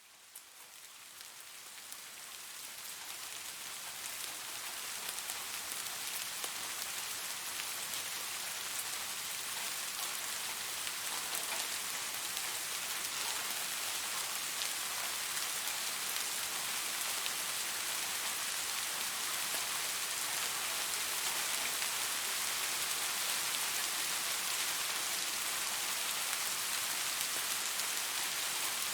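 Steady rainfall, a dense patter of drops hitting surfaces. It fades in over the first few seconds and then holds steady.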